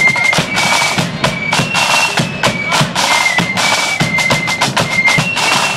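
Marching band playing a tune on high flutes over rapid snare drumming and bass drum beats.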